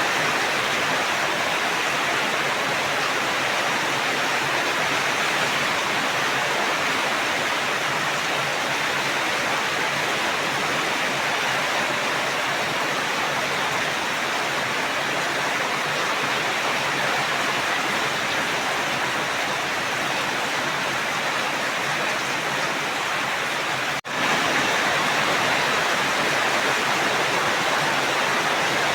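Heavy rain falling steadily, a dense, even hiss with no let-up, broken only by a momentary drop in level about three quarters of the way through.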